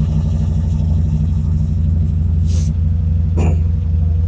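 CFMOTO 950 Trail side-by-side engine idling steadily, just started on its freshly installed battery. Two brief hissing noises come about two and a half and three and a half seconds in.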